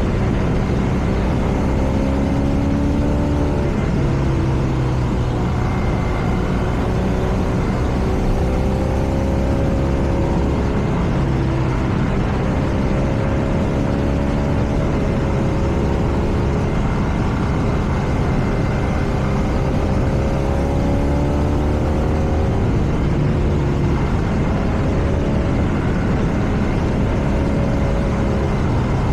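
BMW R nineT's air/oil-cooled boxer twin engine running under way, its note rising and falling several times with throttle and gear changes. Steady wind and road noise run underneath it.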